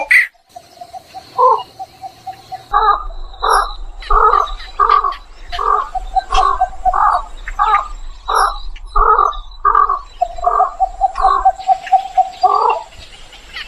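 Birds calling over and over, about two calls a second, with a steady pulsing tone underneath near the start and again near the end.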